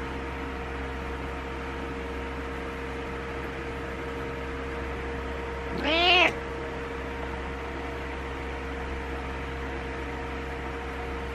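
A domestic cat gives a single meow about six seconds in, rising then falling in pitch over about half a second, over a steady background hum.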